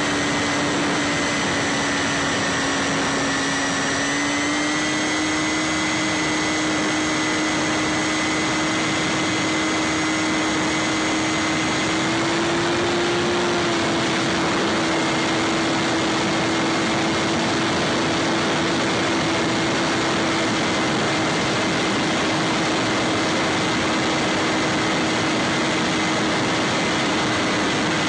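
Bix3 foam FPV plane's electric motor and propeller running in flight, a steady whine over a rush of air noise, picked up by the onboard camera. The pitch dips slightly at first, climbs back about four seconds in, then holds steady.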